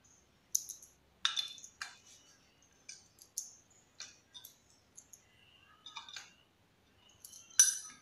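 Steel dynabolt anchor bolt clicking and clinking against a steel mounting plate as it is handled and fitted into the plate's holes: a string of short, sharp metallic clicks, the loudest near the end.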